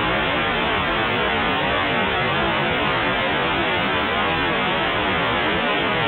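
Dial-up modem handshake in its final stage: a steady, loud hiss of scrambled data as the two modems train on the phone line and learn how each other sounds over the channel.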